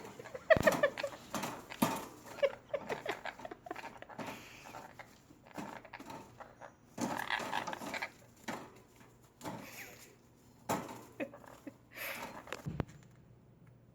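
An agitated parrot giving a run of short, irregular calls mixed with sharp clicks, falling quiet about a second before the end.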